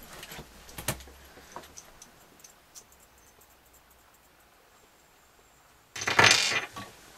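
Small plastic kit parts and a screwdriver being handled on a wooden tabletop: a sharp click about a second in and a few light ticks, then a louder clatter of hard pieces about six seconds in as they are picked up.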